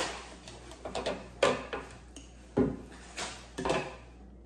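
About six short, irregular knocks and clatters: a metal spoon and a plastic ice-cream pint being handled and set down on a countertop.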